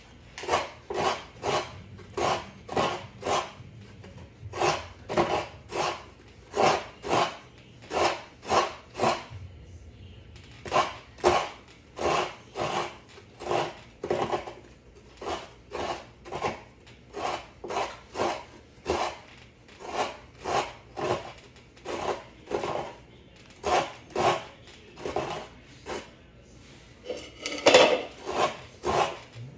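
Coconut meat being grated by hand on a coconut grater stool (kudkuran): a coconut half is scraped over the serrated blade in quick rhythmic rasping strokes, about two or three a second, with a few brief pauses and one louder stroke near the end.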